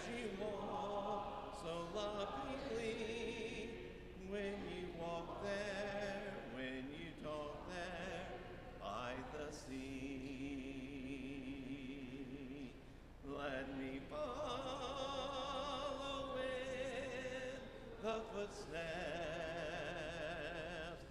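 Congregation singing a hymn a cappella, many voices in sustained phrases with short breaths between the lines.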